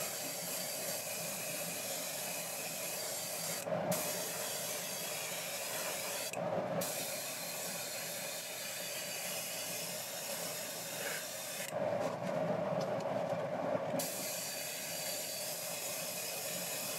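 Iwata HP-BCS Eclipse double-action airbrush hissing steadily as it sprays thinned lacquer paint. The air cuts off three times: briefly about four seconds in, again about six and a half seconds in, and for about two seconds near the twelve-second mark, with light handling sounds in the gaps.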